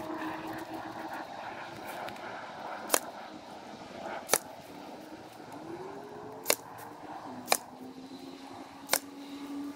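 Ryobi 18 V cordless crown stapler firing staples into the timber of a chicken-run fence: five sharp shots at uneven spacing. A steady background drone rises in pitch about midway.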